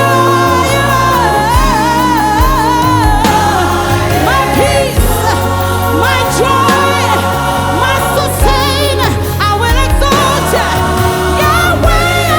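Live gospel worship song: a lead vocalist singing sliding runs with vibrato over keyboards, bass guitar and drums, with choir voices behind.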